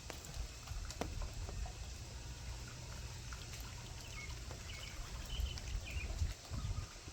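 Outdoor ambience after rain: a low wind rumble on the microphone with scattered light ticks, and a few short bird chirps in the middle.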